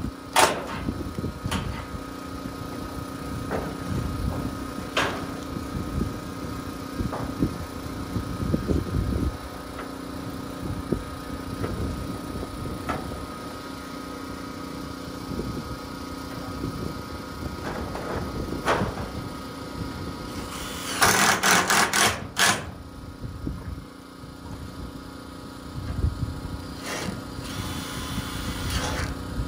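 Cordless impact driver driving screws through corrugated metal roofing panels, in short loud bursts, the longest about two-thirds of the way in. A steady hum runs underneath.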